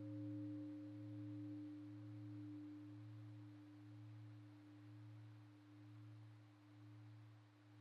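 A Buddhist bowl bell's ring slowly dying away after being struck, a few steady tones with the deep low hum swelling and fading in slow, even pulses.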